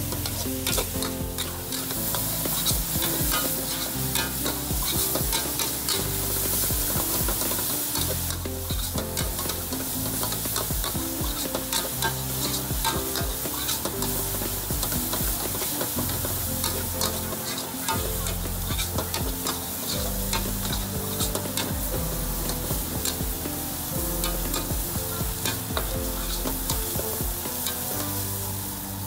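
A metal ladle stirring and scraping food around an aluminium wok over a gas flame, with frequent clicks of the ladle on the pan and a steady sizzle of stir-frying.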